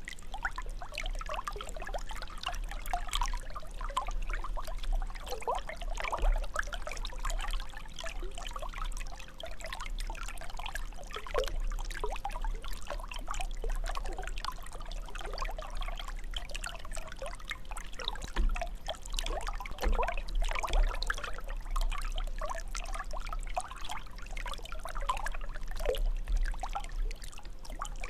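Fountain water jet falling and splashing into its basin: a continuous, irregular patter of splashes.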